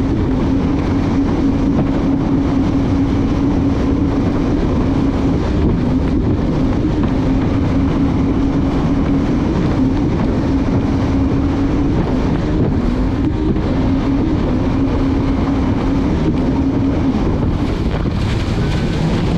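Jet ski engine running steadily under way, holding one pitch that wavers a little, with wind buffeting the microphone and water rushing past the hull.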